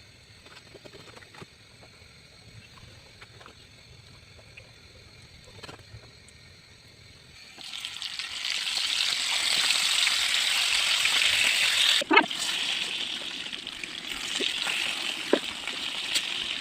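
Light taps and clicks of kitchen work, then about halfway through a loud sizzle starts and keeps going, typical of food going into hot oil in a pan. A single sharp clack of a utensil is heard partway through the sizzle.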